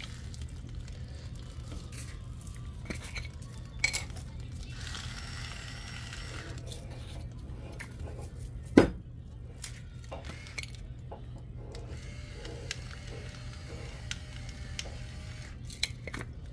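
Metal tongs clinking and scraping in a slow cooker's pot as the food is turned, with scattered clicks and a sharp clack about nine seconds in, the loudest. A low steady hum runs underneath.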